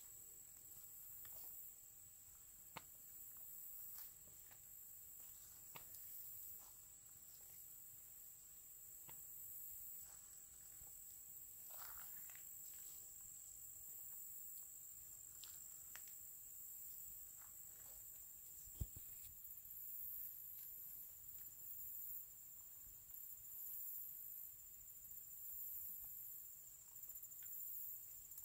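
Faint footsteps on dry leaf litter and twigs, walking slowly, with scattered light crunches and one sharp knock a little after two-thirds of the way through. A steady high insect drone runs behind them.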